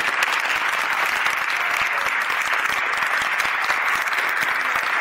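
Audience applauding: many people clapping steadily without a break.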